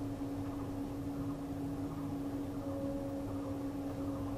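Steady background hum with a constant tone and an even hiss: room tone of the recording, with nothing else happening.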